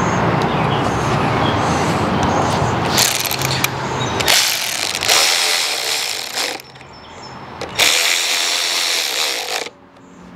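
Cordless drill with a socket extension whirring in three bursts, a short one about three seconds in and then two longer runs, as it drives the air filter housing fasteners on a small mower engine. A steady rumble fills the first few seconds before the tool starts.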